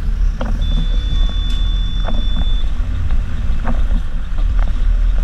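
City bus driving on a wet road: a steady low engine and road rumble with scattered knocks and rattles from the body. A thin, high steady tone sounds for about two seconds near the start.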